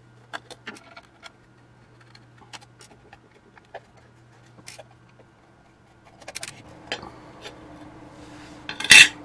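Scattered light clicks and metallic clinks of hands handling the metal casing and cover of an old gyroscope unit, growing busier after about six seconds, with a loud metal clatter near the end.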